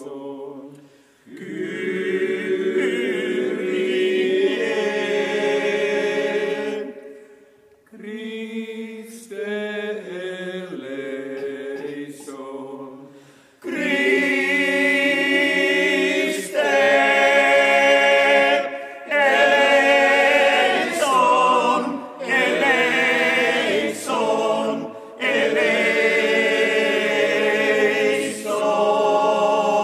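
Male voice choir singing in harmony, in sung phrases separated by short breaths, growing louder from about halfway.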